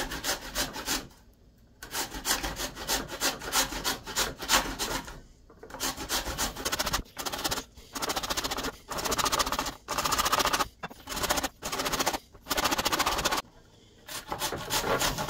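Raw radish being grated on a metal hand grater: runs of quick rasping strokes, with a few short pauses between runs.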